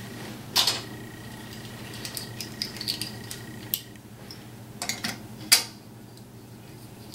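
Small metal clips clicking and clacking against the rim of an enamelware pot lid as they are clipped on: a handful of sharp clicks and light taps, the loudest about five and a half seconds in.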